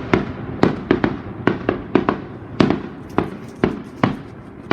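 Fireworks going off in a quick, irregular string of sharp bangs, about two to three a second, each followed by a short echo.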